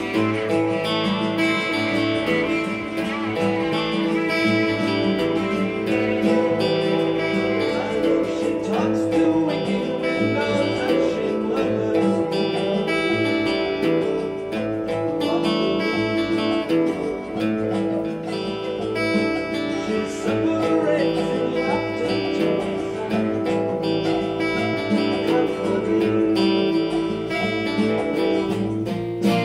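Cutaway acoustic guitar being played solo, a continuous instrumental passage of picked and strummed notes.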